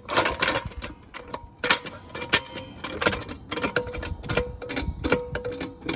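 Quick, irregular metallic clicks and knocks from hand-tool work on the car's front suspension as it is jacked up to compress the bush and bolted up, with faint music under it.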